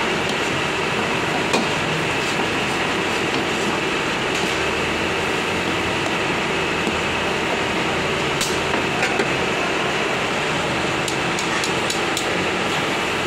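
Mutton frying in a steel karahi over high gas flames: a steady sizzling roar, with the metal ladle scraping and clinking against the pan, including a sharp clink about a second and a half in and several more in the second half.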